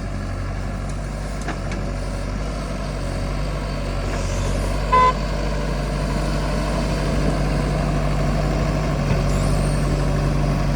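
Diesel engine of a backhoe loader or tractor running steadily, growing a little louder in the second half. A short horn toot sounds once about five seconds in.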